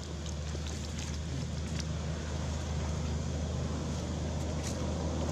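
Steady low outdoor background rumble, with a few faint rustles of dry leaves.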